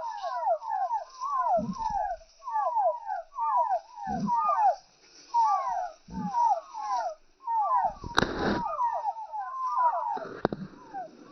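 A flock of chickens calling, many short overlapping chirping calls without pause. A few low thumps come every couple of seconds, and a sharp knock about eight seconds in.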